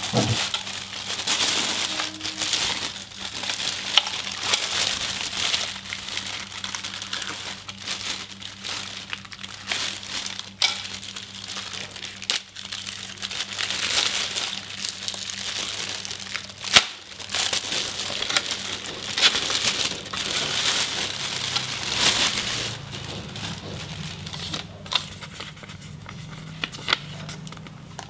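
Thin clear plastic bag crinkling and rustling as it is pulled open and worked off the monitor's round metal stand base, with scattered sharp clicks, one louder about two-thirds of the way through.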